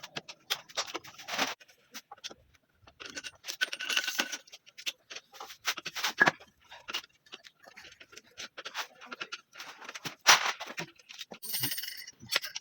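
Hand tools and small metal parts clinking and clattering in irregular clicks and knocks, from work on a motorcycle engine.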